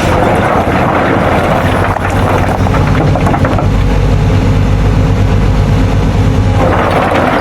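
Excavator's diesel engine running steadily. Its sound drops lower about halfway through, then picks up again near the end.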